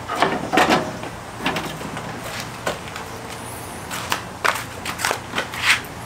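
Irregular knocks, clicks and scrapes as a portable tankless water heater is set into a hard plastic case and shifted into position.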